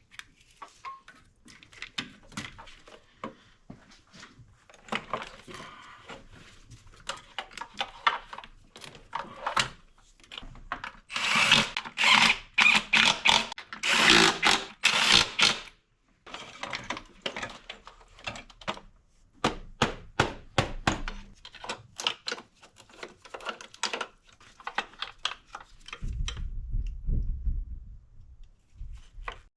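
Hands working on an engine's parts and tools: scattered clicks and knocks of plastic and metal, with several seconds of louder rustling and scraping about halfway through and a low rumble near the end.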